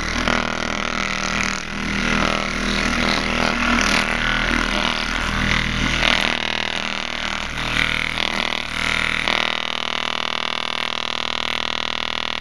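Rockford Fosgate Crescendo mid-bass speaker driven with a 40 Hz test tone at full clip, giving a loud, heavily distorted buzzing drone from its stabbed and cut cone. The sound wavers as a hand pushes on the cone, then steadies for the last few seconds.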